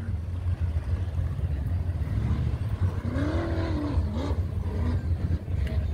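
A rock buggy's engine running, with a steady low rumble throughout. It revs up and back down about three seconds in.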